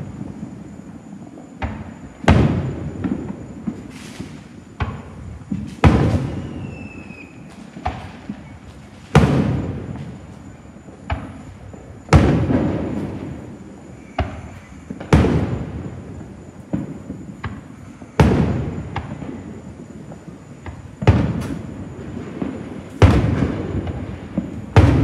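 Fireworks shells bursting: a loud bang every two to three seconds, each followed by a rumble that dies away, with smaller pops in between. A faint falling whistle comes about seven seconds in.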